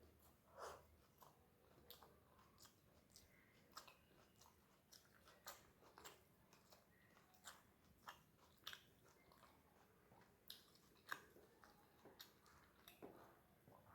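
Faint, close-up chewing of rice and fried greens, with irregular wet mouth clicks and smacks.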